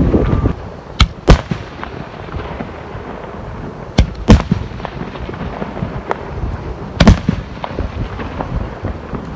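Aerial firework shells bursting overhead: sharp bangs come in close pairs about every three seconds, with a faint crackling and rumble in between.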